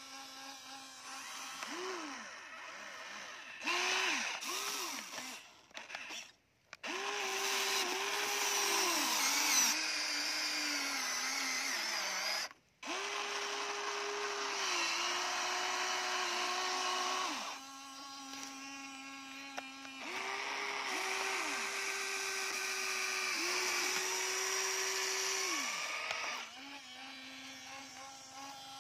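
Small electric motors of a Huina radio-controlled model excavator whining as its boom, arm and bucket work through the dirt. The pitch drops and recovers with each move, with a steady lower hum between moves.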